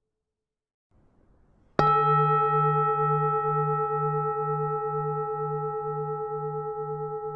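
Buddhist temple bell struck once about two seconds in, then ringing on and slowly fading, its low hum wavering in pulses about twice a second.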